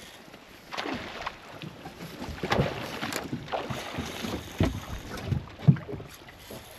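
Water slapping and splashing against a boat's hull in irregular bursts, the loudest near the end, with wind on the microphone.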